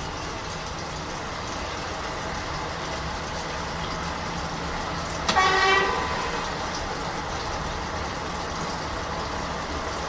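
Old washing machine running a duvet wash, a steady churning with a low motor hum. About halfway through there is a sudden clunk, followed by a brief squeal-like tone that falls slightly in pitch.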